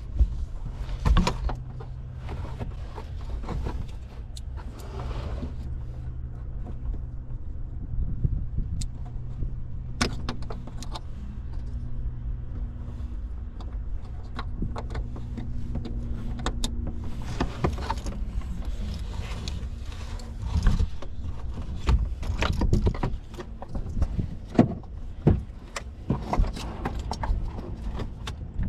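Scattered clicks, knocks and light rattles of hands working on car parts, connectors and tools, over a steady low hum. The clatter gets busier from about two-thirds of the way in.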